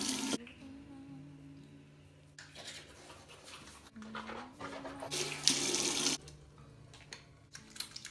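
Bathroom basin tap running in three short spells as hands are washed under it, the water splashing into the sink; the loudest spell is about five to six seconds in.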